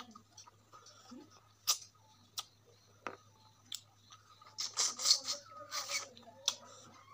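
Close-miked eating by hand: a man chewing meat and rice with sharp lip clicks and wet mouth smacks, a few isolated clicks at first and a louder run of smacking past the midpoint.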